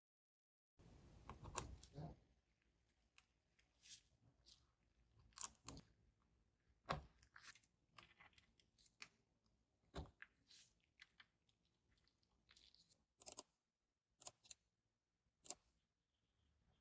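Near silence broken by faint, scattered small clicks and taps, about a dozen at irregular intervals.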